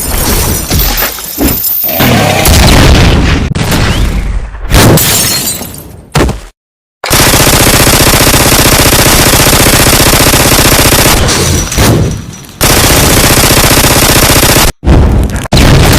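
Loud battle sound effects: a string of crashes and impacts, then about seven seconds in a long, dense rapid-fire rattle lasting about five seconds, followed by more hits.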